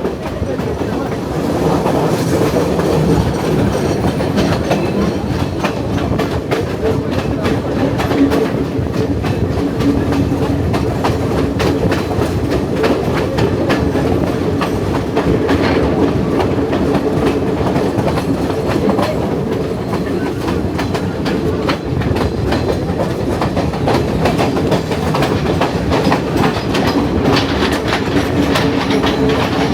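Sri Lanka Railways passenger train running along the track, heard from a carriage: a steady rumble of wheels on rail with rapid clicking and a low, even hum.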